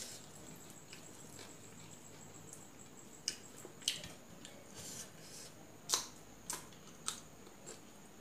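Sounds of eating by hand from a steel plate: soft mixing of rice and chewing, with about five sharp clicks and smacks in the second half. A faint steady high whine sits behind them.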